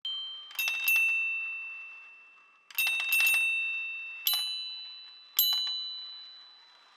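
Steel marbles running through a wooden marble run, striking a metal chime element. The sharp strikes come in quick groups of two or three, then singly, and each leaves a clear high ringing tone that fades over about two seconds, over a faint rolling rumble.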